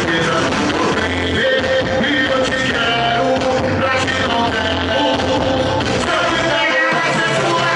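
Axé band music playing loud and steady, with singing over a bass line.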